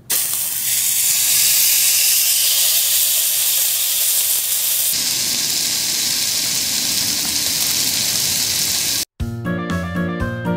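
Beef steak sizzling on a small iron griddle, a loud steady hiss. About nine seconds in it cuts off and a bright keyboard music jingle begins.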